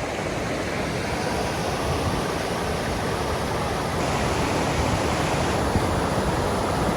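Steady rushing of a waterfall and river, an even wash of falling water that gets a little louder about four seconds in.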